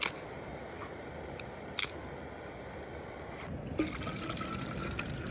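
Steady rain falling, with a few sharp taps in the first two seconds. About three and a half seconds in, the rain gets louder and fuller.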